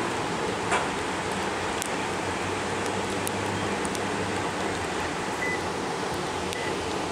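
Pair of ALCO diesel locomotives rolling across a steel trestle, their engines a low steady drone under an even rushing noise. A sharp click comes about a second in, and a few short faint high tones near the end.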